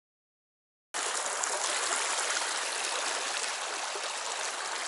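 Dead silence for about the first second, then a shallow rocky stream running steadily over stones, cutting in abruptly.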